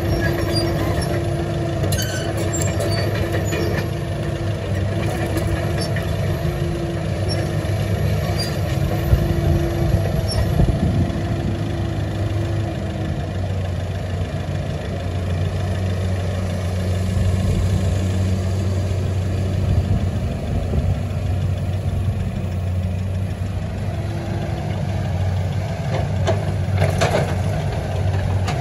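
Komatsu PC200-8 hydraulic excavator's six-cylinder turbodiesel running steadily with a constant low hum while the machine moves and works its arm. A pulsing higher tone comes and goes over the first dozen seconds, and there are a few brief clanks.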